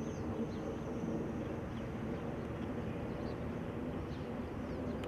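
Steady outdoor background hum, with a few faint high chirps now and then.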